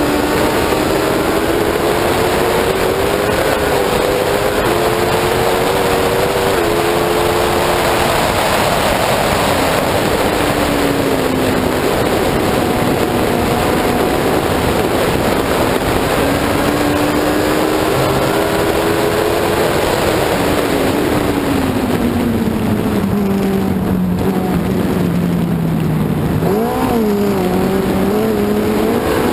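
F1 racing sidecar's engine running hard, heard onboard over heavy wind and road noise. Its pitch climbs with a few sudden steps a few seconds in, rises and falls through the corners, then slides down for a long stretch before jumping up sharply twice near the end.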